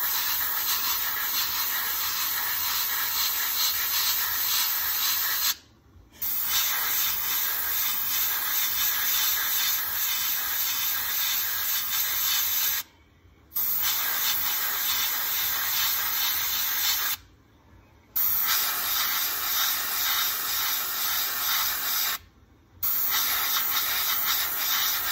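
Airbrush spraying paint, a steady high hiss of air that stops briefly four times and starts again.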